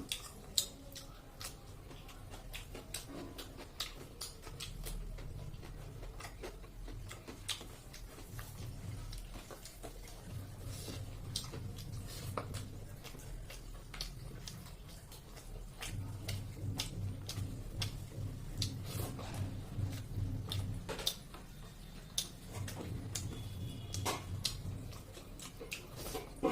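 Close-up mouth sounds of eating chicken feet and rice: chewing with irregular sharp clicks and smacks.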